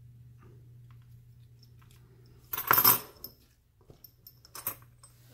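A short metallic clatter of small metal objects being handled on a desk, about two and a half seconds in, followed by a few lighter clicks near the end.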